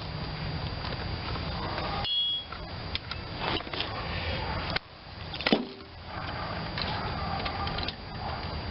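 Scattered clicks and light knocks of hand tools and small metal parts being handled while a mower engine is put back together, over a steady low hum; the background drops out abruptly twice.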